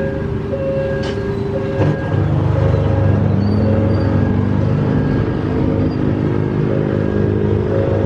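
Diesel train engine running close by, growing louder about two seconds in with its note rising, as under power.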